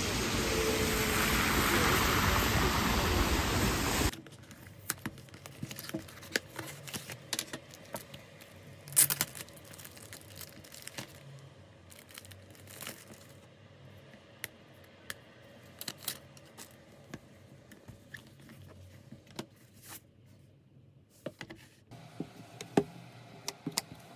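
Heavy rain pouring onto a wet city street, which stops abruptly about four seconds in. Then come the crinkling and rustling of a clear plastic bag as a tablet folio case is unwrapped, with scattered sharp clicks and taps as the case is handled and fitted onto an iPad.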